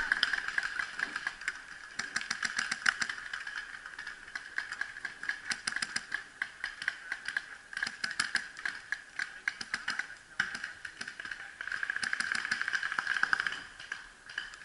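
Paintball markers firing on the field in rapid bursts of sharp pops, several guns at once, going on and off through the whole stretch.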